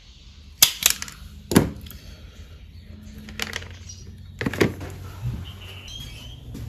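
A few sharp clicks and knocks of small objects being handled on a workbench, the loudest just over half a second and about a second and a half in, with a couple more about four and a half seconds in.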